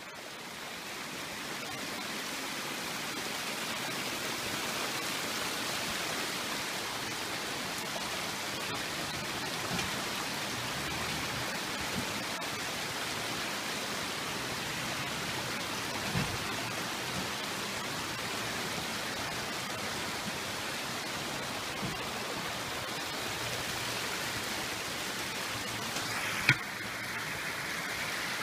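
Creek water running over rocks, a steady rushing hiss, with a few scattered knocks and one sharp knock near the end.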